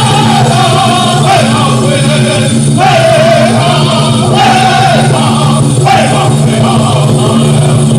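Powwow drum group singing a contest song for the chicken dance: several men singing high, held phrases together over a steady drum.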